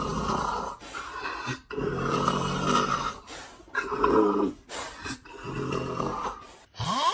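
Loud, rough snoring: a run of snores of uneven length, one drawn out for about a second and a half, the others short. Near the end comes a brief rising, whine-like tone.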